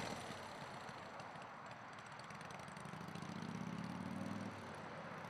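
Motorcycle engine running at low revs, faint, its pitch and level rising slowly from about halfway and falling away near the end.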